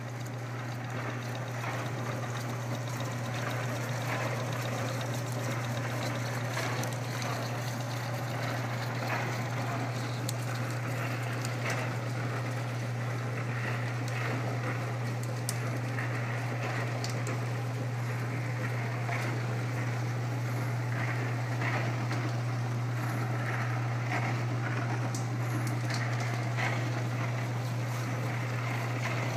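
Homemade wet rotary tumbler running: an electric motor and belt-and-pulley drive turn a 5-gallon cooler drum with a steady low hum. Over the hum comes a continuous swishing with faint ticks, from the water, soap and stainless steel pins tumbling in the ammo box inside the drum.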